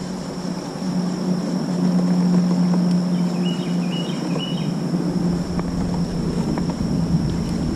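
Steady low whirring hum of a pedal-driven kayak's propeller drive (Native Watercraft Propel drive) under way, with a thin steady high tone above it.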